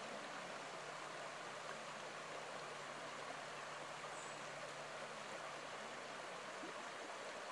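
Shallow river running fast over rocks, a steady rushing of water.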